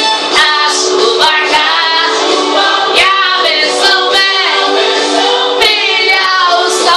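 Several voices singing together in Portuguese, a Christian worship song, over instrumental backing with held tones.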